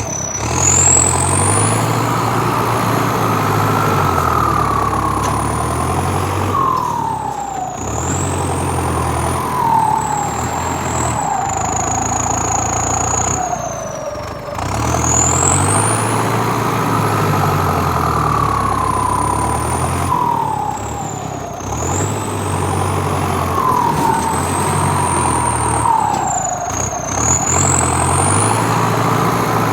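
An engine running with a whine that rises and falls in repeated cycles, dropping back about every six or seven seconds.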